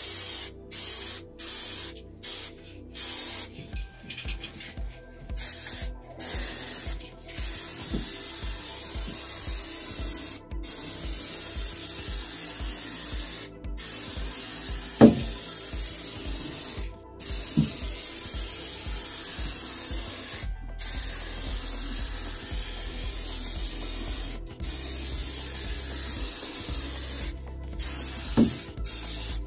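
Paint being sprayed in repeated passes, a steady hiss cut by short pauses. The pauses come quickly in the first few seconds, and the passes run longer after that. About halfway through there is one brief sharp sound, the loudest moment, with two fainter ones later.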